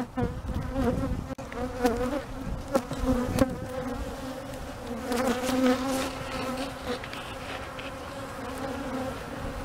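A crowd of honeybees buzzing around an opened nuc box in a steady hum, with single bees flying close past the microphone and a few sharp knocks in the first few seconds. The colony was not smoked and is defensive.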